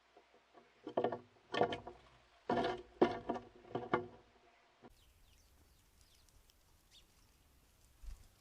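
A bird giving a series of loud, harsh calls in quick succession, about four or five of them. After that come only faint, scattered high ticks and chips, with a short low thump near the end.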